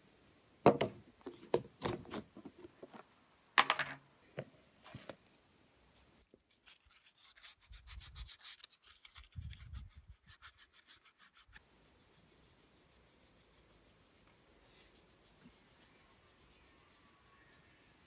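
A few sharp knocks and clatters, then a wood carving being hand-sanded: rapid back-and-forth rubbing strokes for about five seconds before it stops.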